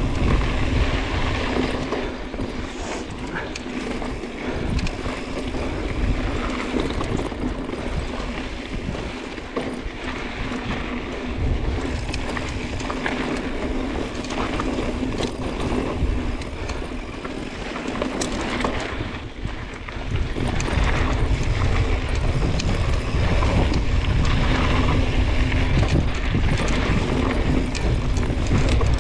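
Mountain bike rolling down a dirt and rock singletrack: tyres on loose dirt and gravel, with the bike rattling over the bumps. Wind buffets the camera microphone throughout, heavier and louder over the last third.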